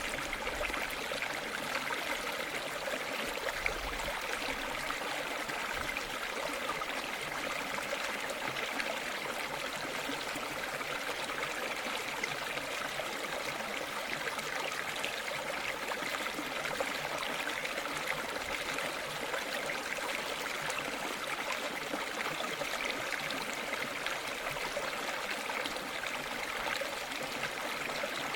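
A river flowing over stones: steady rushing water with fine splashing and trickling.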